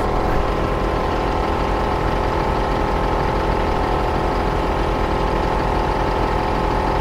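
T-Max 4x4 portable air compressor running steadily, pumping air through its hose into a deflated off-road tyre.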